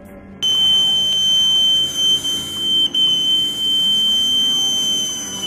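Boatswain's call (bosun's pipe) blown in one long, steady high whistle, starting about half a second in, with a brief catch near the middle and a slight drop in pitch as it ends. This is the general pipe sounded to call a ship's company to attention before a broadcast announcement.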